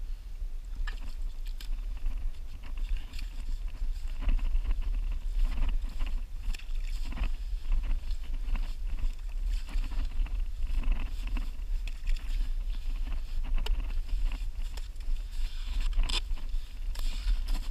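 Digging wet, muddy sand by hand and with a short shovel while clamming: irregular scrapes and squelches of sand and mud, over a steady low rumble, with a sharper scrape near the end.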